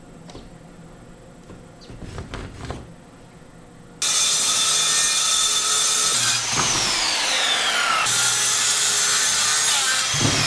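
Corded circular saw cutting a sheet of OSB board. Faint scratching and handling sounds come first. About four seconds in the saw starts suddenly and runs loud and steady through the cut, with its whine falling in pitch twice.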